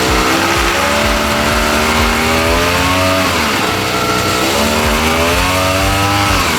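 Brush cutter engine revved up twice. Each time the pitch climbs, then drops quickly as the throttle is released.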